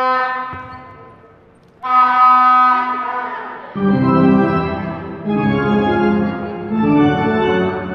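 Organ-style keyboard music: two long held chords, each fading away, then a quicker tune of changing notes from about four seconds in.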